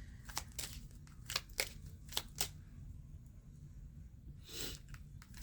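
Tarot cards being handled: a scattered run of light card clicks and snaps, with a brief soft swish about four and a half seconds in.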